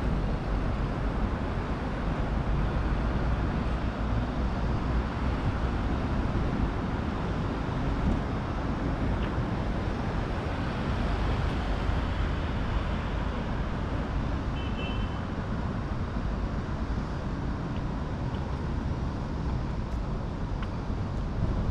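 Steady road traffic noise of a city street: a continuous rumble of passing cars with no single vehicle standing out.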